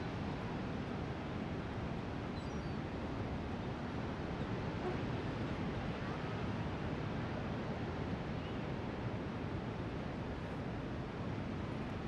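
Steady ocean surf and wind: a constant rushing sound with a deep low rumble underneath, unbroken throughout.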